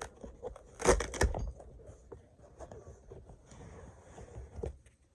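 Unboxing handling noises: a sharp knock or clatter about a second in, then scattered small clicks and a light rustle of packaging, with one more knock near the end.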